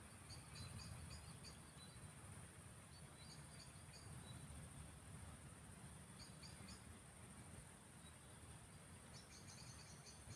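An insect, cricket-like, chirping high in short quick trains of about five pulses each, four times, with a long run near the end. Beneath it is a faint steady low rumble of outdoor background noise.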